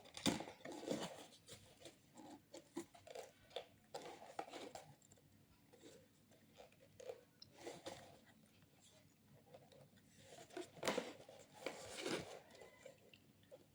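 Faint handling noises of a GoPro action camera being worked open by hand: scattered small clicks, taps and rustles, a little louder and busier near the end.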